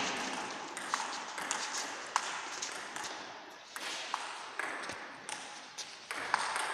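Table tennis rally: a celluloid ball ticking back and forth off the paddles and the table, a sharp click about every half second, echoing in a large hall.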